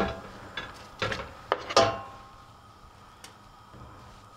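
A knife scraping and knocking cooked yams off a cutting board into a stainless-steel pot. There are several knocks and clinks in the first two seconds, one with a short metallic ring, then a single faint tap.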